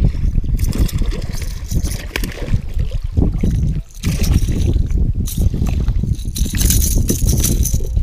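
A hooked walleye thrashing and splashing at the water's surface beside a plastic kayak as it is landed. The splashing comes in bursts: through the first few seconds, again about five seconds in, and near the end. Under the splashes runs a heavy low rumble on the microphone.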